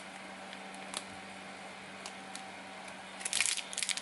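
A few small clicks of parts being handled over a faint steady hum. About three seconds in, a plastic parts bag starts crinkling as it is handled.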